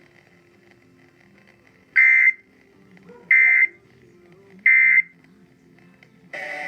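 Emergency Alert System end-of-message code sent over FM radio: three short, loud bursts of high digital data tones, about 1.3 s apart, signalling the end of the severe thunderstorm warning.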